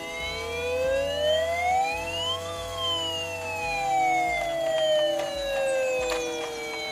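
Toy fire engine's electronic siren sound: one slow wail that rises for about two and a half seconds and then falls away, over steady electronic tones.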